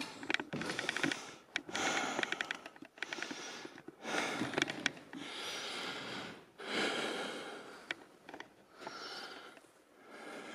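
A person breathing heavily close to the microphone: a run of slow, noisy breaths, each about a second long, with short pauses between them.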